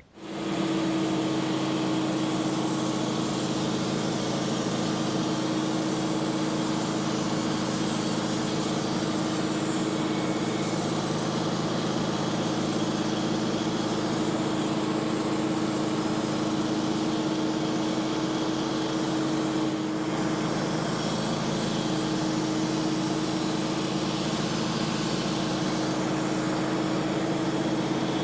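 Wood-Mizer band sawmill running steadily under power, its engine and blade working through a hickory log. The sound comes up abruptly at the start and holds an even pitch.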